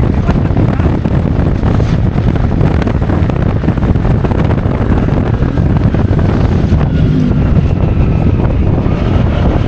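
Loud, steady wind rushing over the rider's microphone while riding a motorcycle at road speed, with the bike's running noise underneath.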